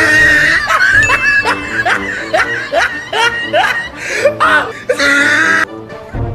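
Laughter over background music: a run of short, rising, yelping laughs, about two to three a second, between two loud held squeals; the second squeal cuts off suddenly.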